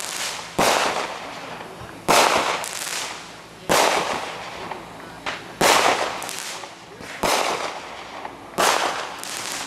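A string of loud explosive bangs, six in all, roughly every one and a half seconds. Each one trails off with an echo, and a few are followed by small crackling pops.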